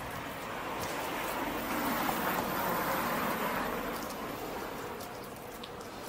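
A vehicle passing along the street: tyre and road noise swells for a couple of seconds and then fades away.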